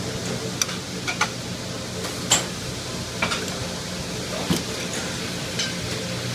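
Metal tongs clinking and scraping against a metal sauté pan and a ceramic ramekin while green beans are served out: a scatter of short sharp clinks, the loudest a little past two seconds in, over a steady low hum.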